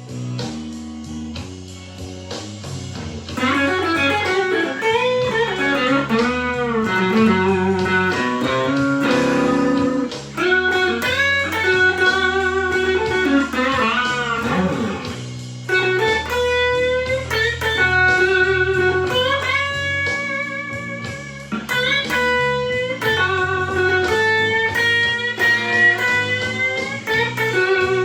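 Overdriven electric guitar, a Stratocaster through a Fender Blues Junior tube amp and a TS9 Tube Screamer, playing a slow blues lead with many bent notes over a backing track of bass and drums. The lead comes in louder about three seconds in.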